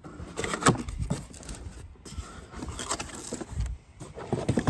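Cardboard box flaps and packing inserts rustling and scraping as a brass pressure vacuum breaker is unpacked, with a few light knocks and clinks from handling the valve.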